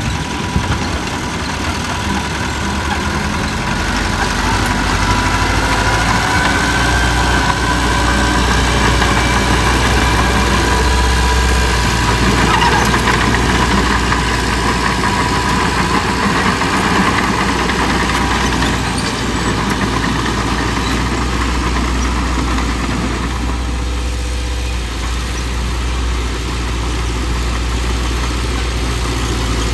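Diesel engine of a heavy earthmoving machine running steadily with a low drone, working a little harder through the middle and easing back near the end.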